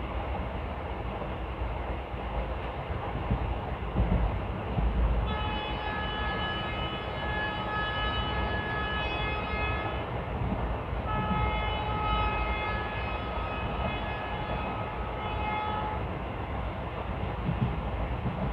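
Train coaches running along the track, a steady rumble with a few heavier thumps, with the WAP4 electric locomotive's air horn sounding two long blasts of about five seconds each, starting about five seconds in, with a short break between them.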